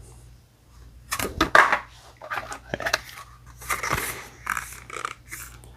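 Handling noise on a microphone: irregular rustling and a few sharp clicks, over a faint steady low hum.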